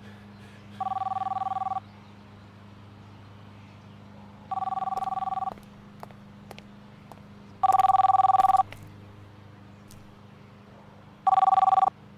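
Mobile phone ringing: a two-tone electronic trill, four rings about every three and a half seconds, the last one cut short.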